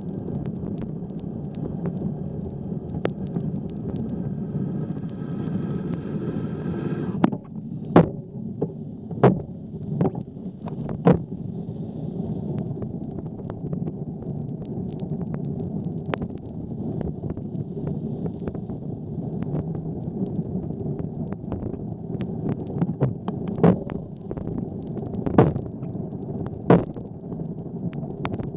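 Wind and road noise on a bike-mounted camera's microphone during a rainy ride. Sharp knocks and pops come now and then, with clusters about seven to eleven seconds in and again near the end. A steady high tone with overtones sounds for about three seconds and stops abruptly about seven seconds in.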